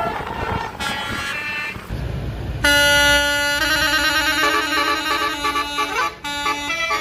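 Bus 'telolet' basuri multi-tone air horn playing its tune: about two and a half seconds in, a loud held chord starts, then it runs into a quick series of changing notes, over traffic noise.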